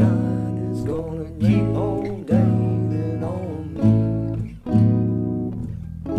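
Acoustic guitar strumming chords in a slow song, with a fresh strummed chord about once a second and a wavering melody line over the first half.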